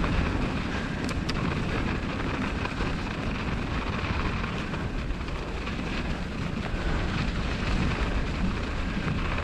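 Steady rush of wind on the microphone mixed with bicycle tyres rolling over snow while riding.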